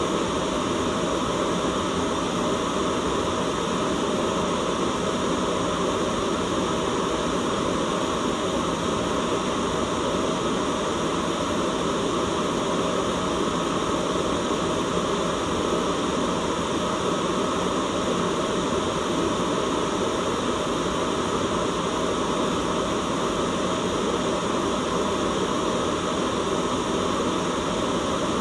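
Steady white noise that holds unchanged, with no breaks or events.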